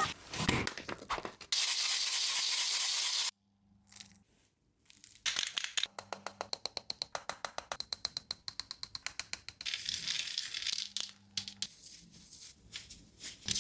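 Slime being squeezed and worked by hand: sticky clicks and crackles, with a fast regular run of clicks in the middle. About one and a half seconds in, a burst of hiss lasts nearly two seconds.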